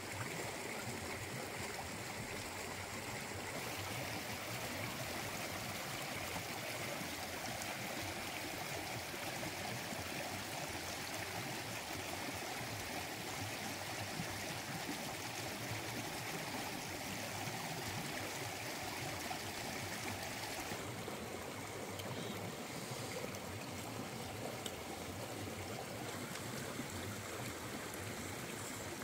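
Jungle stream running over rocks: a steady rush of water, its character changing slightly about four and twenty-one seconds in.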